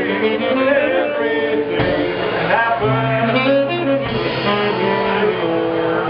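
Live jazz band playing, with a man singing into a microphone.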